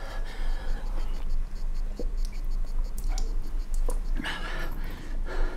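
A man drinking from a bowl: breathy slurps and swallows in two spells, one near the start and one from about four seconds in, with a few small clicks between them.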